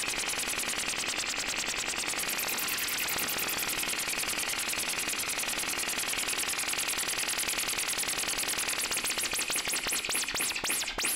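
Synthesized white noise through a resonant low-pass filter whose cutoff is swept by a sine LFO. It gives a rapid, even pulsing flutter that slows near the end into separate rising-and-falling whooshing sweeps as the LFO rate is turned down.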